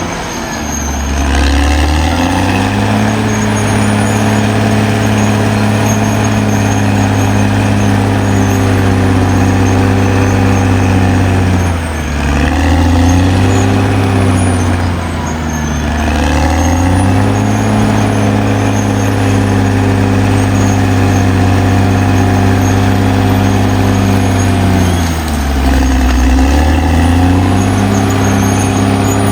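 Caterpillar D6R XL bulldozer's diesel engine running hard and steadily. Its pitch drops and comes back up about four times as the machine takes and sheds load.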